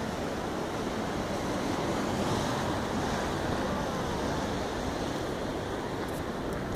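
Sea surf breaking on rocks and washing around them: a steady rush of water, mixed with wind on the microphone.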